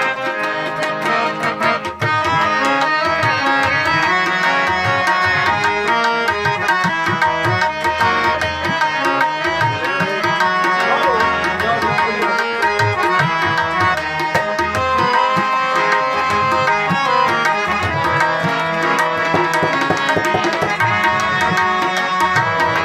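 Tabla played in a steady stream of strokes over harmonium accompaniment holding the melody.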